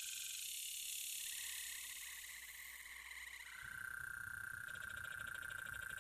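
Faint outdoor chorus of calling insects and frogs. A steady high-pitched whine mixes with a rapid pulsing chirr, and a faster, even trill joins in near the end.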